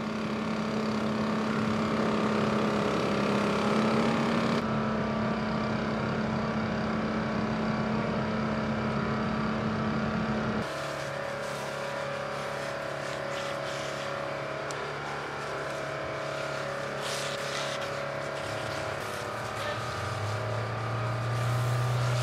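Fire engine's motor running steadily at raised speed, as when driving its pump to feed hose lines. About halfway through, the sound cuts to a different, lower steady engine drone with scattered sharp crackles. A deeper hum swells near the end.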